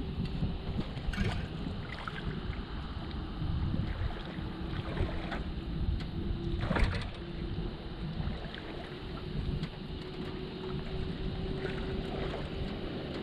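Wind buffets the microphone while the longtail mud motor's shaft and tail are handled against the aluminium jon boat, giving a few knocks and clunks, the loudest about two-thirds of the way through. A faint steady hum joins a few seconds in.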